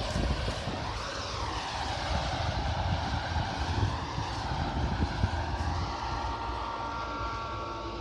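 Combine harvester running as it cuts oilseed rape, heard across the field as a steady mechanical drone that fades slightly as the machine moves away. A few steady tones come in near the end.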